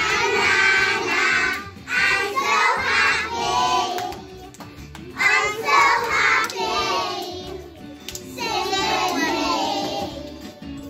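A class of young children singing a song together, in four phrases of about two seconds each with short breaks between.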